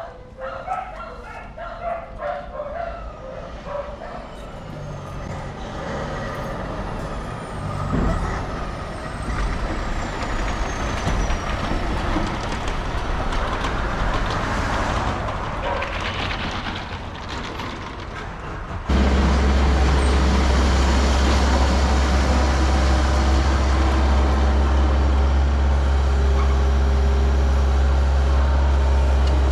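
A large vehicle's engine running, with a dog barking in the first few seconds. About 19 s in, the sound cuts abruptly to a louder, steady, low engine drone.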